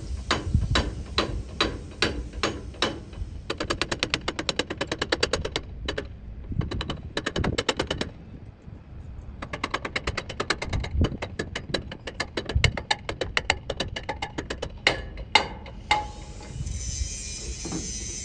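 Hammer blows on the metal end fitting of a tubular sail boom, knocking the fitting out of the boom: spaced strikes about three a second, runs of quick light taps, and a few harder single blows.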